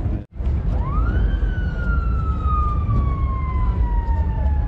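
A siren winds up quickly about a second in, then falls slowly and steadily in pitch as it winds down. A steady low rumble runs underneath, and the sound cuts out briefly near the start.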